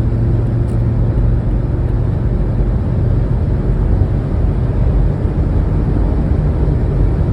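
VW T4 Syncro van driving at motorway speed while accelerating: a steady drone of engine, drivetrain, tyre and wind noise, with the low engine hum rising slightly as the revs climb.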